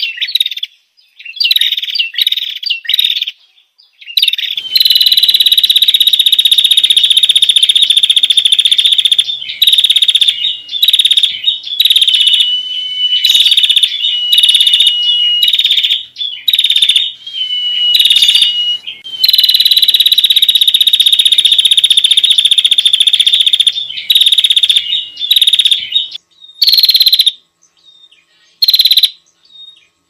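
Bird-lure recording of prenjak lumut calls, very loud. Short chirps give way to long buzzing trills, each held for several seconds, and a thin steady whistled note comes in the middle.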